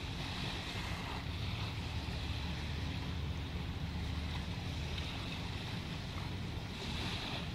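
Steady low rumble of a car driving: engine and road noise heard inside the cabin, with a faint steady hum over it.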